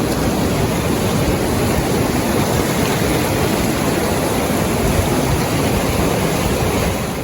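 Whitewater river rapids rushing loudly and steadily.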